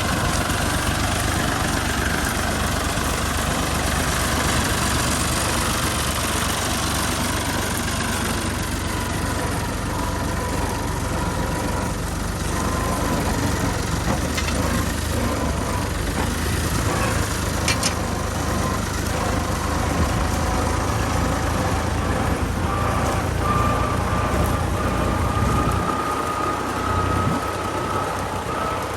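Fiat 480 tractor's diesel engine running steadily with a low, even drone. A faint machine whine rides over it and climbs slightly in pitch over the last several seconds.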